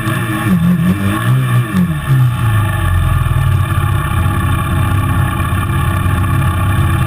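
ATV engine running under way, its revs rising and falling for the first couple of seconds, then holding steady.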